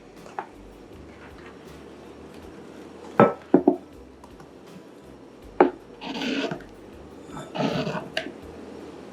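Kitchen handling sounds while ingredients go into the filling bowl: a few sharp knocks of a utensil or container against the bowl, then two short spells of scraping and rubbing.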